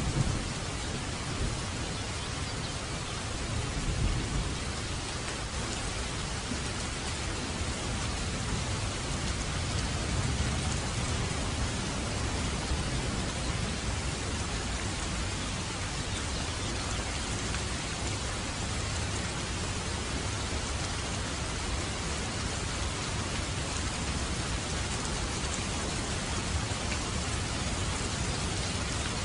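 Heavy rain falling steadily: a dense, even hiss of many drops.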